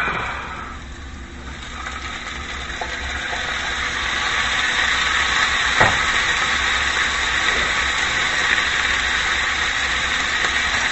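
Hot skillet of onions and mushrooms in butter sizzling with a steady hiss that builds over the first few seconds, then holds. A single light knock comes near the middle.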